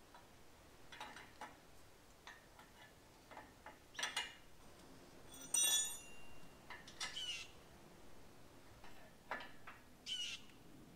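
Wrench clicking and clinking against steel hydraulic hose fittings as they are tightened onto a hydraulic ram, in scattered irregular knocks, with one sharp ringing metal clink about five and a half seconds in.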